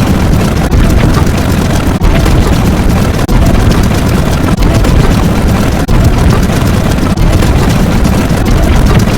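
A loud, heavily distorted rumbling sound effect, strongest in the bass. It breaks off briefly and restarts about every 1.3 seconds.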